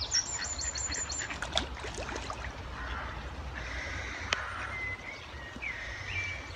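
Small birds chirping in quick runs of short high notes, strongest in the first second or so, with ducks calling among them over a low steady rumble. One sharp click about four seconds in.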